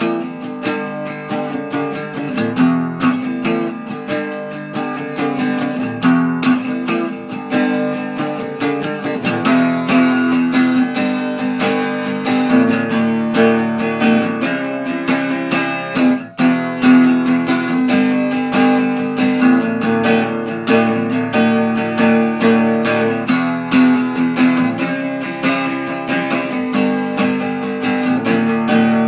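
Instrumental passage of a song with no singing: strummed acoustic guitar over steady held notes, with a brief break in the sound about halfway through.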